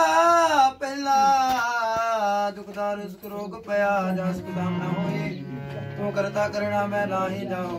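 Sikh kirtan: a man sings a drawn-out, wavering devotional melody over the held chords of a hand-pumped harmonium.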